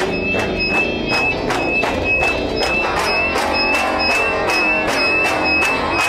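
Instrumental music with a steady beat of about three hits a second under a high, wavering held tone.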